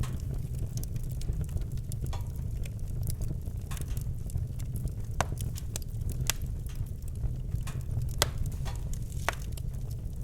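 Wood fire in a fireplace burning with a steady low roar and irregular sharp crackles and pops, a few louder pops in the second half.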